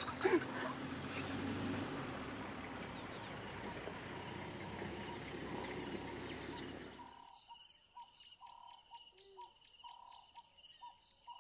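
A few short squeaky calls from African wild dogs at the start over a steady hiss, with thin bird chirps near the middle. About seven seconds in the hiss drops away to a steady high insect trill, with a short call repeating roughly every second.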